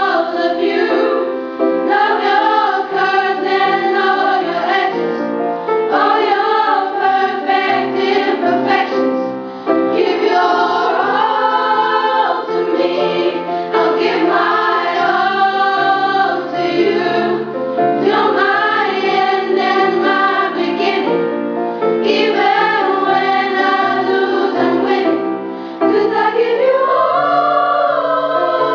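A girls' school choir singing together in sustained phrases, with a few short breaks between phrases.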